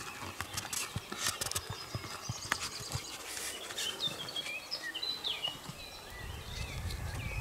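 Outdoor field ambience: scattered soft rustles and clicks, with a short burst of high bird chirps about halfway through and a low wind rumble rising near the end.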